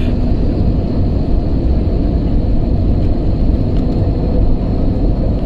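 Jet airliner cabin noise: the turbofan engines and the rush of air past the fuselage make a steady low drone, with a faint steady hum riding on it.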